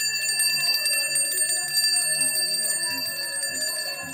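A hand bell rung continuously with rapid strikes, its ringing tones held steady, over faint crowd murmur.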